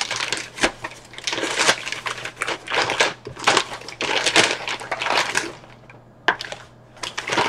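Brown paper takeout bag rustling and crinkling in irregular bursts as hands rummage inside it and pull out small sauce cups.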